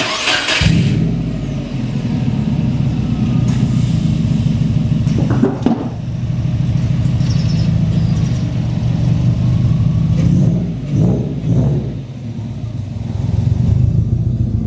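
Car engine starting, catching about half a second in, then running steadily.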